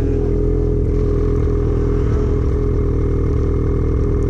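Ski-Doo Summit 850's two-stroke twin engine running at steady revs as the snowmobile rides through deep powder.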